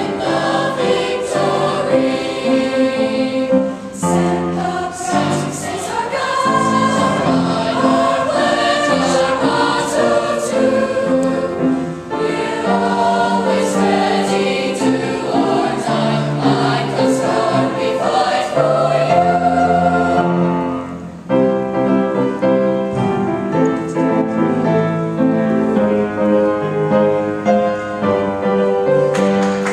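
Mixed youth choir of boys and girls singing together, with a brief pause about two-thirds of the way through.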